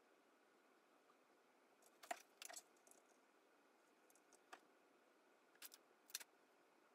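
A handful of scattered, short clicks of keys or taps on a tablet's keyboard, over quiet room tone.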